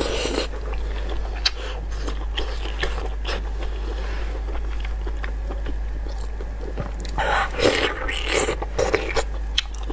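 Close-up eating sounds: biting into and chewing a spicy, sauce-covered rolled meat. There are louder bursts of biting right at the start and again from about seven to nine seconds in, with smaller wet chewing clicks between.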